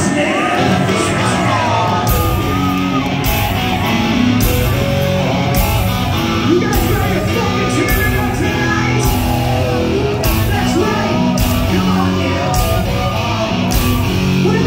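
Live hard rock band playing loud, with drums and distorted guitars coming in fully about two seconds in and a steady beat of cymbal crashes. Yelled, high rock vocals sound over it.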